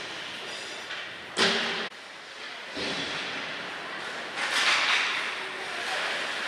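Ice hockey play in a rink: skates scraping the ice and sticks and puck knocking, with a sharp knock about a second and a half in and a hissing scrape of skates on ice near the middle.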